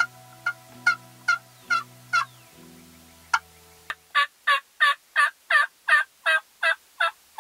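Hen turkey yelps worked on a wooden box call: a run of about six raspy yelps, a short pause, then a louder, even series of about ten yelps at roughly three a second. Low background music sits under the first half and ends about four seconds in.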